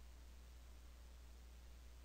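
Near silence: a faint steady low hum and hiss of the recording's noise floor.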